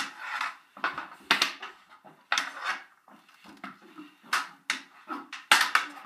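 Floor hockey on a bare basement floor: hockey sticks clacking against the floor and the ball in about a dozen sharp, irregular knocks, several of them in quick pairs.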